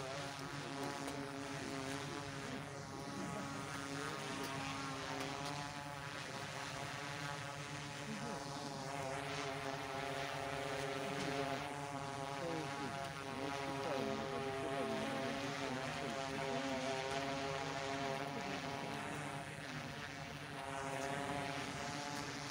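A steady propeller hum: several whining tones held level, a little louder around the middle.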